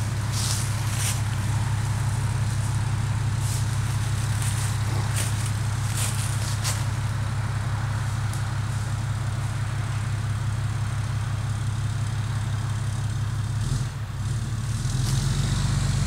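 Cummins inline-six turbodiesel pickup engine running steadily, with twigs and leaves crackling underfoot over the first several seconds. About fourteen seconds in, the engine note deepens and grows louder as the truck takes the strain on the tow rope to pull down a leaning dead tree.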